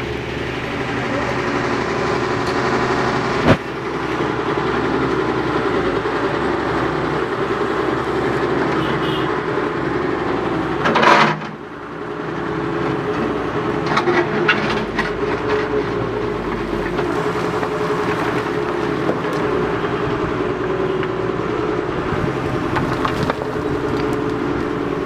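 Construction machinery running continuously, with a steady mechanical rumble and clatter. A sharp click comes about three and a half seconds in, and a brief loud burst follows about eleven seconds in.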